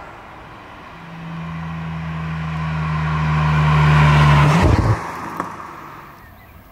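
Audi RS4 Avant's twin-turbo V6 passing by at a steady engine speed. It grows louder over a few seconds, drops in pitch sharply as it goes past about four and a half seconds in, then fades away.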